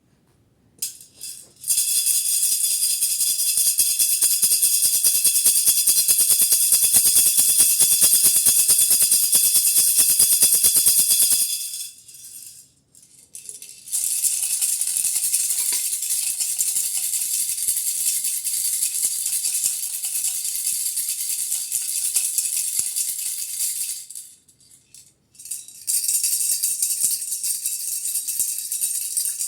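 A hand rattle shaken fast and steadily, a dense rattling clatter in three long spells, pausing briefly about twelve and twenty-five seconds in.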